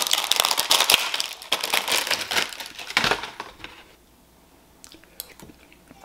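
Small plastic food packet crinkling as it is torn open and handled. It is busy for about three seconds, then dies down to a few faint rustles.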